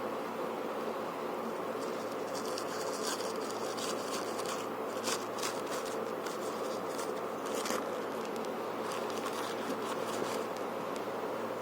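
A steady buzzing hum, with bursts of light, crisp rustling from about two seconds in until near the end.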